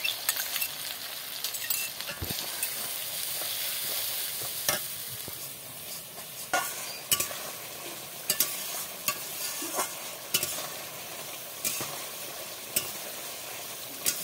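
Spiced yogurt masala frying and sizzling in hot oil in a kadai. A metal spatula stirs it, scraping and tapping against the pan at irregular moments.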